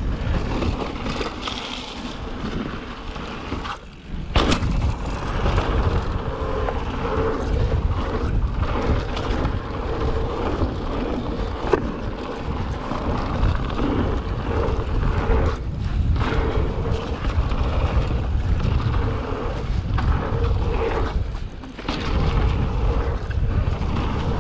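Mountain bike descending a dirt trail at speed: steady wind noise on the microphone mixed with tyre noise and the bike rattling over bumps, with a couple of sharp knocks about four and twelve seconds in.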